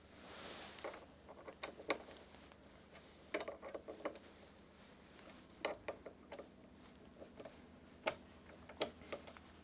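Quiet, scattered metallic clicks and small knocks from a Jacobs drill chuck being handled and its sleeve turned by hand to close the jaws on a small mandrel, with a brief rustle at the start.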